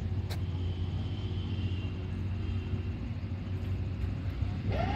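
Outdoor field recording beside a thick web railway switch: a steady low hum with one faint click about a third of a second in. Right at the end a rising whine begins as the electric point machine starts to throw the switch.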